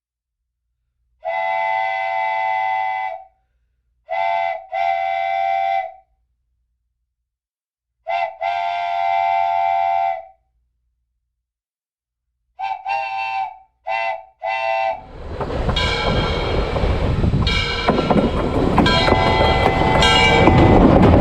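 Train horn sounding a chord in a series of blasts: a long blast, then a short and a long one twice, then a few short toots. About two-thirds through, the noise of the train passing comes in and grows louder, with the horn still sounding over it.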